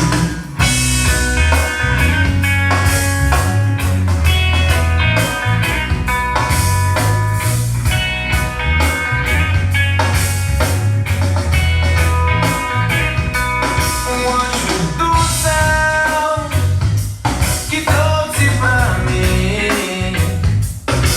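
Pop-rock music with guitar, drums and a heavy bass beat, without vocals.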